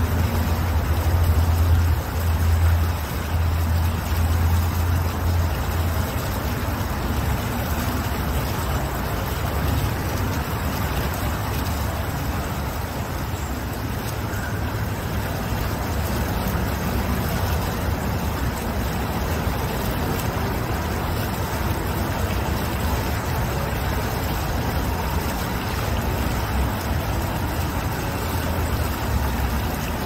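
Single-jet fountain steadily splashing into its pool, with a low rumble underneath that is strongest in the first few seconds.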